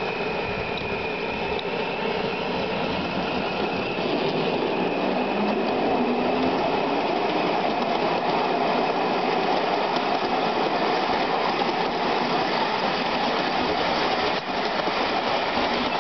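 Miniature ride-on railway train running steadily along the raised track: a continuous rumble of wheels on rail with a faint whine whose pitch rises slightly around five seconds in as the train picks up a little speed.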